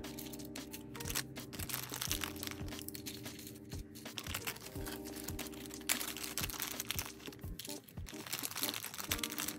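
Background music with a steady beat, over irregular crinkling and rustling as plastic nail-tip packaging is handled.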